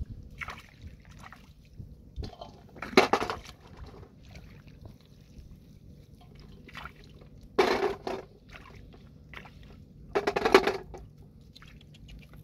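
Hands splashing and sloshing in shallow muddy water while grabbing snails and fish, with three louder splashes a few seconds apart.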